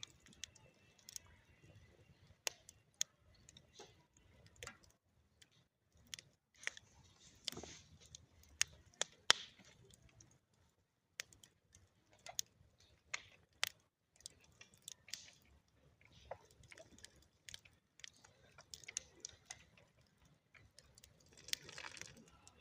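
Small wood campfire crackling: irregular sharp pops and snaps from burning firewood, with a soft hiss swelling up twice.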